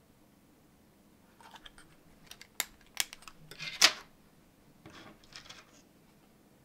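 3D-printed red PLA parts and their kit card being handled: a run of small plastic clicks and rattles with a few sharp snaps, the loudest about four seconds in.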